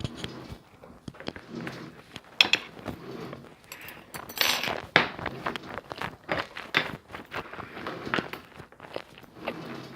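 Close-up eating sounds: chewing and crunching, with many sharp clicks and crackles.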